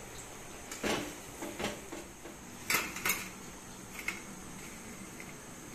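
Metal slotted spoon clinking and knocking against steel cookware: a run of about seven short, sharp clinks, the two loudest near the middle.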